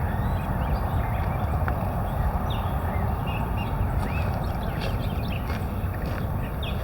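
Wind rumbling on the microphone outdoors, with irregular footstep-like clicks and brief high bird chirps scattered through it.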